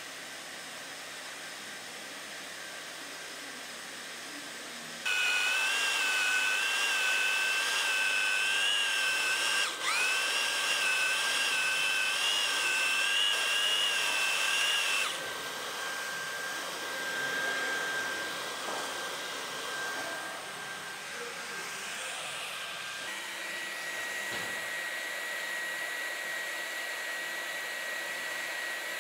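WELDY booster EX2/EX3 hand extrusion welder running: its hot-air blower hisses steadily throughout. For about ten seconds in the middle the drill-type drive motor that feeds the welding rod runs much louder, its whine wavering and dipping briefly once. Later a steady high tone sits over the blower.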